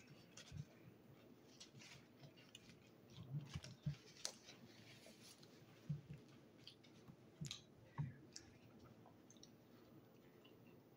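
Faint chewing and mouth clicks of a person eating pizza, with a handful of soft knocks and clicks scattered through, loudest a few seconds in.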